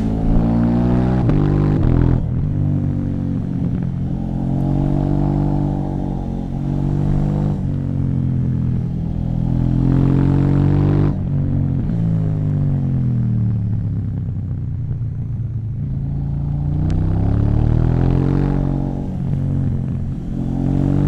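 KTM 790 Duke's parallel-twin engine through an Akrapovic exhaust, accelerating hard: its pitch climbs, drops sharply about 2, 7 and 11 seconds in as gears change, then falls while the rider eases off. It climbs again near the end and falls once more.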